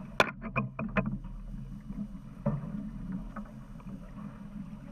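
A boat's engine running with a steady low hum, and a quick run of sharp clicks and knocks in the first second, with one more knock about halfway through.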